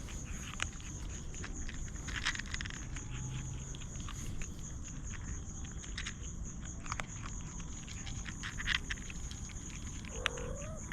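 Scattered light clicks and rustles over a steady high-pitched hum, and near the end a kitten mewing once, briefly and rising in pitch.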